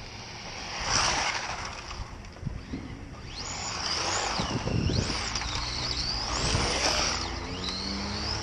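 Electric motor of an RC touring car, an old, well-worn Reedy 3300kv sensorless brushless motor on 3S, whining as the car is driven hard, its pitch rising and falling again and again with the throttle from about three seconds in.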